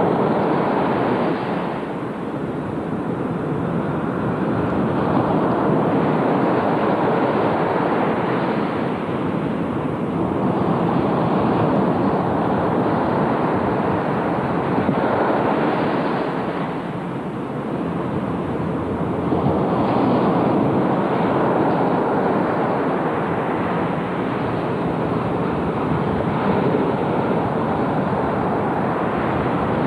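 Ocean surf breaking and washing in a steady rush of noise that swells and eases every several seconds, with wind on the microphone.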